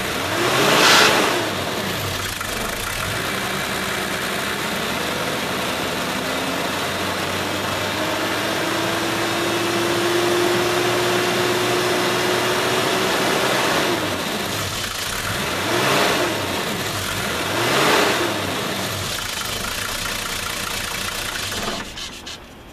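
1986 Toyota Land Cruiser's 4.0-litre 2H inline-six diesel running steadily, revved briefly and let fall back three times: once about a second in, and twice close together later on. It stops near the end.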